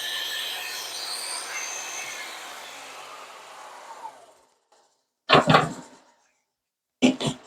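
Skil table saw at the end of a rip cut through maple, its motor and blade winding down after being switched off, the sound fading away over about four seconds. Two short loud knocks follow, about five and seven seconds in.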